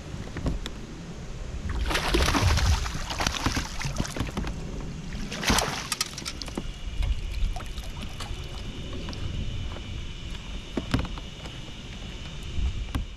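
Water splashing and sloshing around a fishing kayak, with two louder splashes about two and five seconds in, scattered light knocks against the hull, and a faint steady high tone joining after about six seconds.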